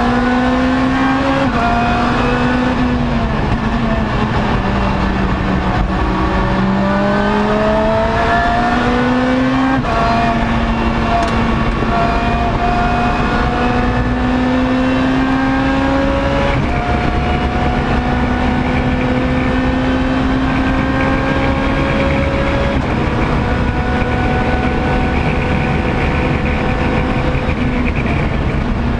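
Lotus race car's engine heard from inside the cockpit under hard acceleration. The pitch sags and climbs again in the first few seconds, then rises steadily through long pulls and drops sharply at three upshifts after the first ten seconds. Constant road and wind noise runs underneath.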